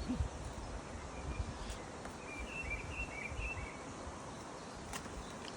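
Outdoor ambience: a steady background hiss with a small bird's short, high chirping calls for about a second and a half in the middle.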